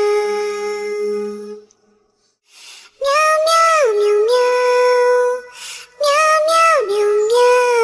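A song with a high, childlike sung voice: one long held note, a break of about a second, then phrases that slide up and down between notes.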